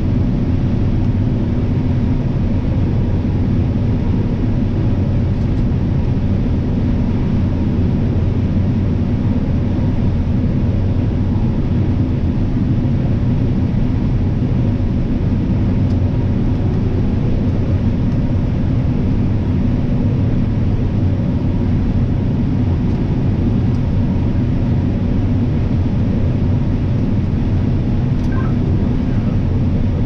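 John Deere S790 combine running under load while harvesting corn: a steady low machine drone that does not change.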